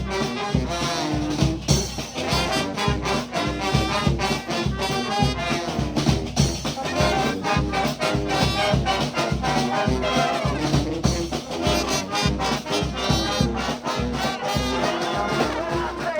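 A brass band playing a lively tune, with horns over a steady percussive beat.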